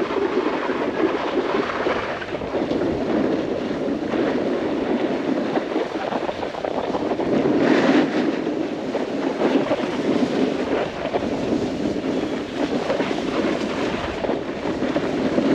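Snowboard sliding and carving over snow at speed, with steady wind rushing over the microphone.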